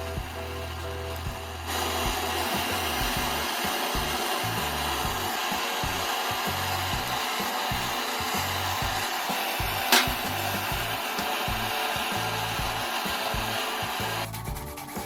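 Gas torch flame hissing steadily while heating copper pipe for soldering, starting a couple of seconds in and cutting off near the end, with one sharp click about ten seconds in, over background music with a bass line.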